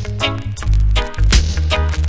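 Reggae music: a heavy, sustained bass line under short, evenly spaced chord stabs, with no singing in this passage.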